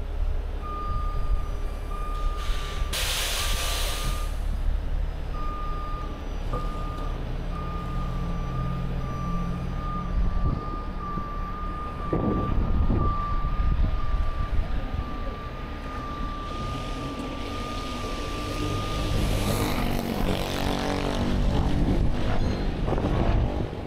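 Miller rotator tow truck on a Peterbilt chassis working its boom: a warning alarm beeps over and over on one pitch while the diesel engine runs underneath, with a short hiss of air about three seconds in. The beeping stops about four seconds before the end as the engine note rises.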